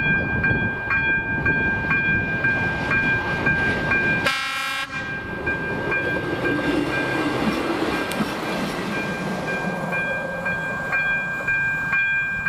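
Level-crossing warning bell ringing, an electronic high tone pulsing about twice a second, while a RegioNova diesel railcar passes. The railcar gives a short horn blast about four seconds in, then its engine and wheels rumble by over the next few seconds.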